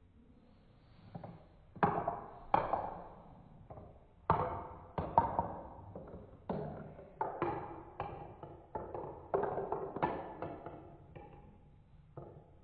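Marbles running through a plastic Trix marble run: irregular clacks and knocks as the marbles drop onto and bounce along the track pieces, with a rolling rattle between hits. It starts about a second and a half in and thins out near the end.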